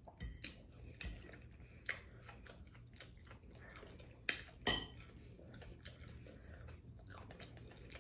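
Fork clinking against a plate during a meal, with soft chewing. There are a handful of short sharp clicks, the loudest about halfway through.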